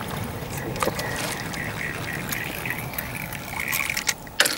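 A hooked crucian carp splashing at the pond surface as it is played in, with a few sharp splashes near the end.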